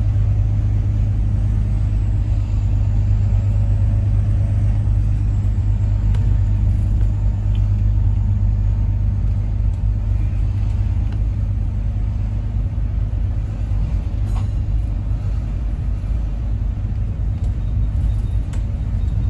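Bus engine and drivetrain running steadily while the bus drives along, heard from inside the bus as a constant low rumble. A single brief click sounds about fourteen seconds in.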